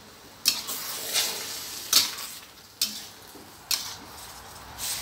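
Spatula scraping and clanking against a stainless steel wok while wide rice noodles and vegetables are stir-fried, five sharp strikes about a second apart. Between the strikes the food sizzles steadily in the hot pan.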